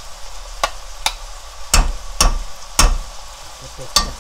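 A metal spoon knocking and scraping against a nonstick wok while sticky soy-glazed dried squid strips are stirred over a low sizzle. There are about six sharp knocks, the three loudest close together in the middle.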